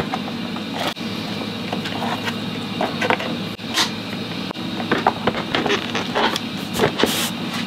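Plastic-based front seat of a BMW R1250 GS being handled: lifted off the frame, hands working at the wiring beneath, then set back down, giving a string of short knocks, clicks and rustles over a steady hum.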